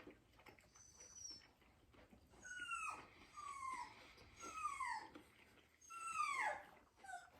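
A dog whining, about four high whines that each fall in pitch, then a short one near the end, heard faintly from another room. The dog is crying for food.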